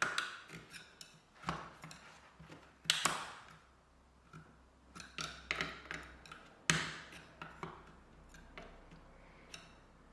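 Irregular small plastic clicks and light knocks as a blunt knife prises at the clips of a dishwasher door latch interlock to unclip it from the door opening module. The loudest clicks come about three seconds in and again near seven seconds.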